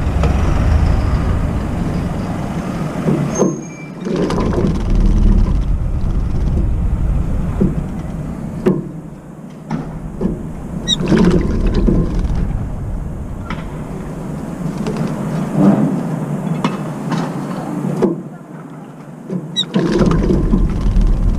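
Brown-eared bulbul bathing in a water container, splashing in several short bouts over a steady low rumble.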